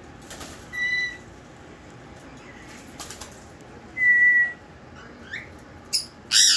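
Pet parrots: a short, steady whistle about a second in and a louder one about four seconds in, then loud, harsh squawks near the end.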